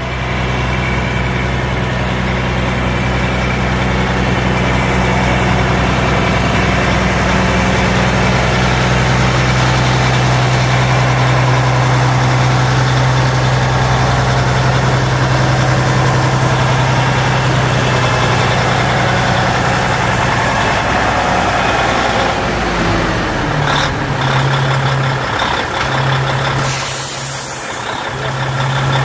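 Big diesel truck engine running steadily close by with a deep drone. After about 23 seconds the deep part drops away and the hum comes and goes, with a short hiss of air near the end.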